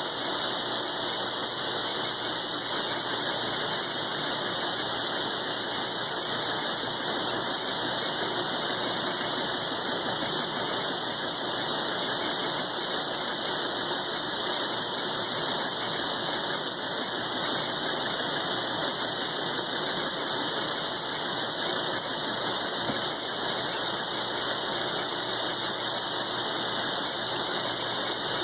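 Large milling machine cutting a pocket in thick steel with a roughing end mill, a light pass along the layout line: a steady, high-pitched cutting noise with no breaks or chatter.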